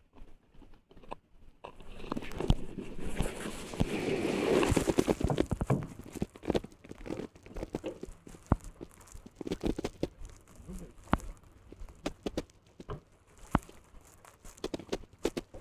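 Rustling and crunching close to the microphone, with many scattered clicks and knocks. The rustling is loudest for a few seconds, starting about two seconds in.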